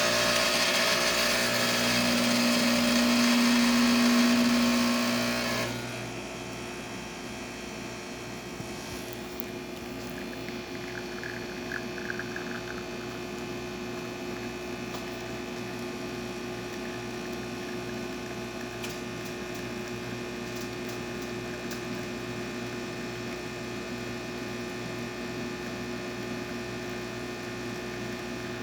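Giotto espresso machine's pump running while it pulls a shot of espresso: louder for about the first six seconds, then it drops suddenly to a quieter steady hum.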